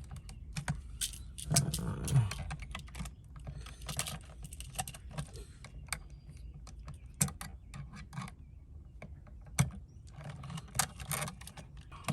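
Pliers clicking and tapping as a ground wire is bent into a hook to fit the outlet's terminal, in irregular small metallic clicks.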